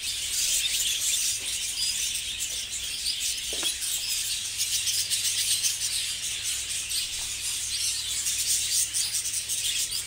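Dense, continuous chattering and chirping of many budgerigars, a flock of high, short calls with a low steady hum underneath.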